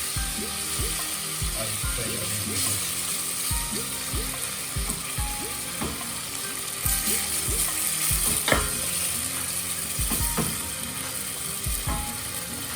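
Minced lamb sizzling in hot oil in a frying pan over high heat, with a sharp knock about eight and a half seconds in.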